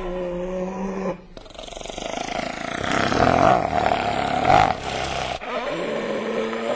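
Hyena vocalizations, in several spliced segments. A steady low call is followed by a louder, rougher call that swells up in the middle. Near the end comes another held low call.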